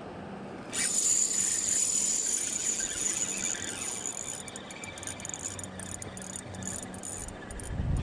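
Spinning reel whirring as line is cranked in, starting suddenly about a second in and going on with short breaks, with a smallmouth bass hooked on the line.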